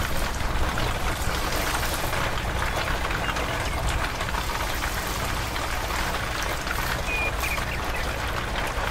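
Steady hiss of water falling like rain onto a bed of sand, with a steady low hum underneath.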